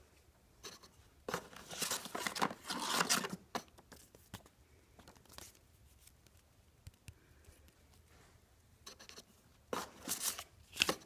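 Paper and cardboard packaging rustling and scraping under handling: a burst of rustling lasting about two seconds starting a second in, a few faint rustles in between, and another short burst near the end as the box lid is opened and a hand reaches inside.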